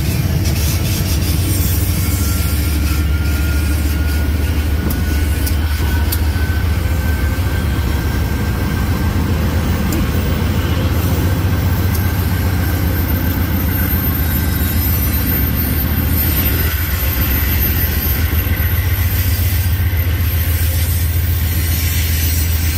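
Diesel-electric freight locomotives leading a grain train roll slowly past at close range with a steady deep engine rumble, followed by loaded grain hopper cars rolling by. A faint whine rises slowly in pitch through the first half.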